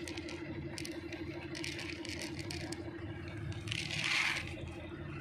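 A cat crunching dry kibble: irregular small crackling clicks as it chews. Behind it runs a steady low hum, and a brief hiss comes about four seconds in.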